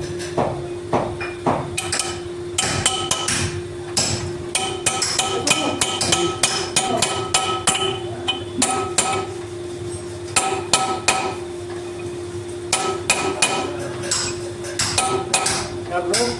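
Hammer blows on the steel parts of a rotavator shaft and bearing, many sharp strikes in irregular quick runs, each with a short metallic ring.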